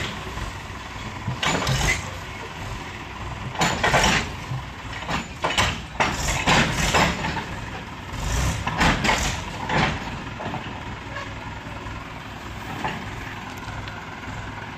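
Heavy diesel machinery running, with a steady low rumble. Several loud rushing bursts of noise come and go during the first ten seconds, then it settles to the steady rumble.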